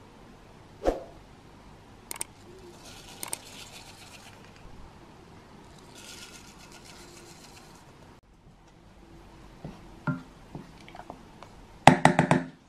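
Desiccated coconut poured from a measuring cup into a stainless steel saucepan of water, the flakes hissing softly as they fall in two stretches. Near the end a wooden spoon knocks quickly against the pan several times, the metal ringing.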